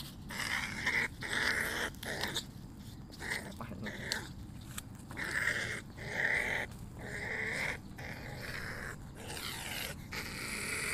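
Ferret badger giving a long series of harsh, shrill growling calls, each under a second with short breaks between, as it struggles while snared and held.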